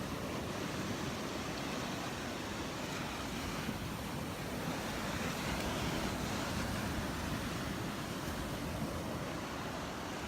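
Surf washing onto the beach, with wind rumbling on the microphone.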